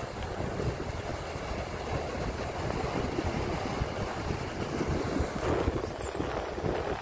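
Wind buffeting the microphone: a steady rushing noise with irregular low rumbling gusts.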